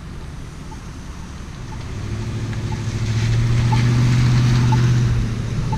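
A motor vehicle's engine hum and road noise growing louder from about two seconds in as it comes close, over road traffic. Faint short ticks about once a second from the crosswalk push button's locator tone.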